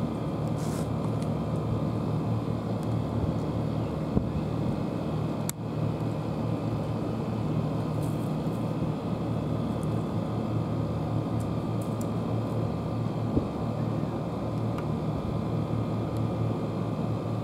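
Steady low mechanical hum of machinery running without change, with a single sharp click about five and a half seconds in.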